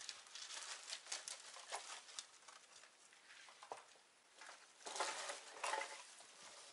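Footsteps crunching through snow among brush and branches, with many light crackles. Two louder rustling crunches come about five seconds in.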